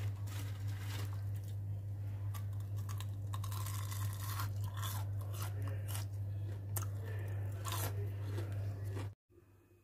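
Crunchy breadcrumb-coated fried tempe being bitten and chewed, an irregular run of crisp crunches, over a steady low hum; it all breaks off suddenly near the end.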